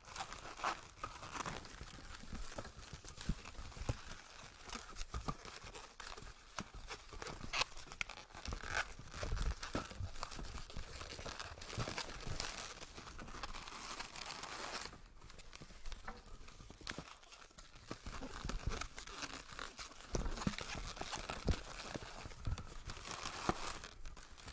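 Inflated latex twisting balloons (260s) squeaking and rubbing against each other as they are handled, twisted and pressed into place, an irregular run of scrapes, creaks and small clicks.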